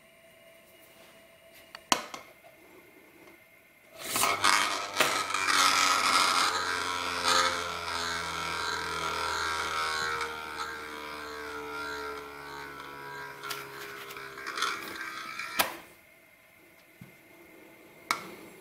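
Homemade metal spinning top whirring on a concave mirror for about twelve seconds, its tones slowly falling in pitch as it spins down, then stopping suddenly. Single sharp clicks come before and after.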